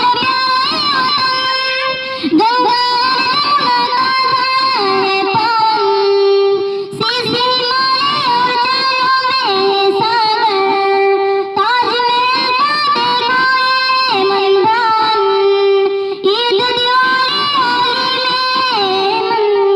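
A woman singing a patriotic song solo into a microphone, unaccompanied, in phrases of a few seconds, each ending on a long held lower note.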